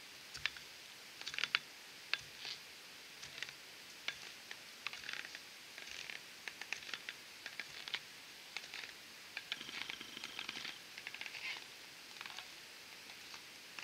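Aluminium walking stilts stepping through crunchy snow: irregular crunches and short clicks as the stilt feet pack the snow down.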